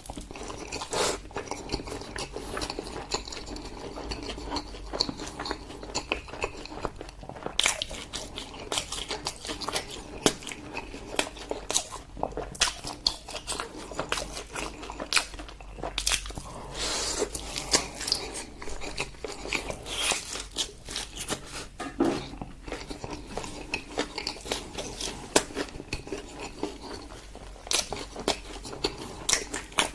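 Close-miked eating: a person biting and chewing food, with irregular crunchy bites and clicks throughout.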